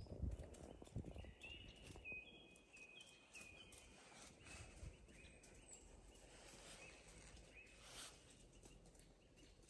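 Faint woodland birdsong: a small bird repeating short high whistled notes, with a few soft low thumps of movement near the start.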